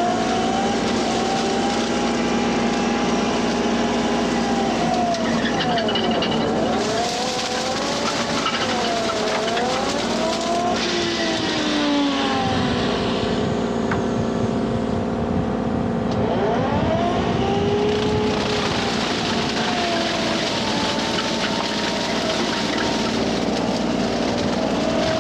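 Kubota U35-4 mini excavator's diesel engine running steadily while the Express Steel hydraulic brush cutter spins through tall grass and cattails. A hydraulic whine dips and rises in pitch again and again as the cutter works.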